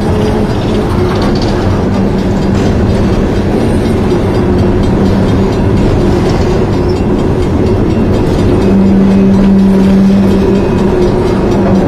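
CSX coal hopper cars rolling past: a loud, steady rumble of steel wheels on rail, with a low steady tone running through it that grows stronger for a couple of seconds near the end.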